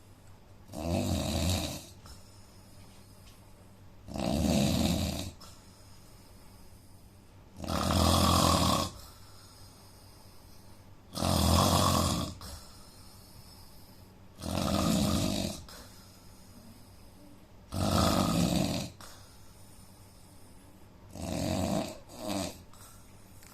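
A man snoring in his sleep: a loud rasping snore on each breath, about every three and a half seconds, with quiet breathing between; the last one breaks into two short snorts. The snoring is put down to a problem with his nose.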